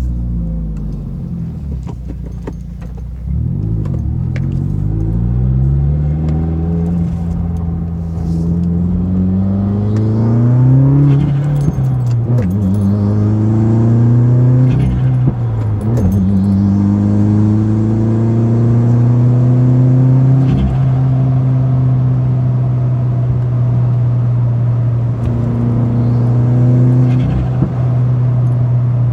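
A 2017 Subaru WRX's turbocharged flat-four, fitted with an aftermarket cat-back exhaust and catted J-pipe, heard from inside the cabin as it is punched hard through the gears: the revs climb, drop sharply at two gear changes with brief sharp sounds, then hold steady at cruise through the second half.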